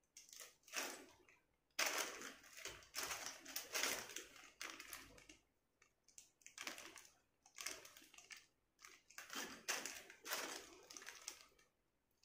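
Clear plastic zip bag of small action-camera mounts handled and crinkling in irregular bursts.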